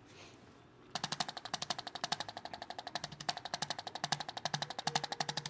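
Handheld chiropractic adjusting instrument delivering a rapid series of clicking thrusts, about ten a second, starting about a second in, with soft thuds under some clicks as it taps on the body.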